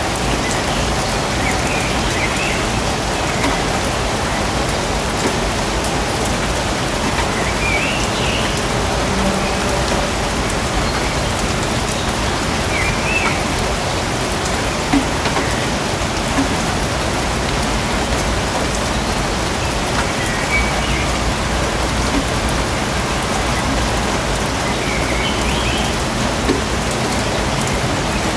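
Steady rain falling on foliage and surfaces in a forest, an even continuous patter.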